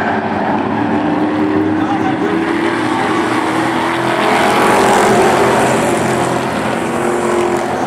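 A pack of Pro Truck race trucks lapping an oval track, engines running hard, growing louder as the pack passes close about four to five seconds in.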